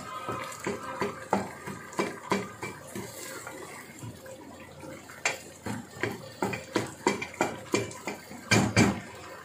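Wooden spoon stirring in an aluminium pressure cooker, knocking and scraping against the pot about three times a second, over the light bubbling of masala with beaten yogurt frying in oil. The knocks get louder near the end.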